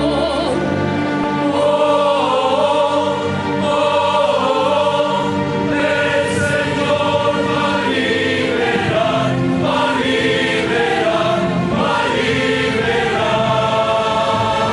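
A choir singing sacred music in held, sustained chords.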